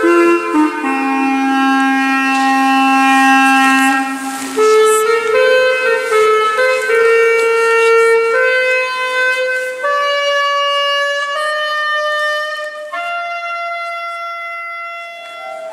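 Clarinet playing a slow melody over sustained accompanying notes, settling on a long held note near the end.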